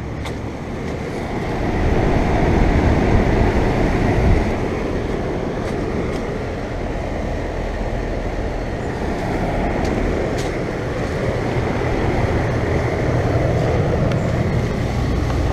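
2008 Goodman 5-ton central air conditioner's outdoor condensing unit running: a steady rush of air from the condenser fan over a low compressor hum. It gets louder about two seconds in.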